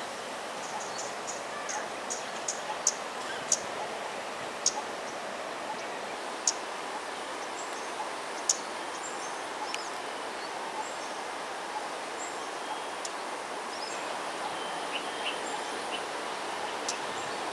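Steady outdoor background hiss with many short, high-pitched bird chirps scattered through it.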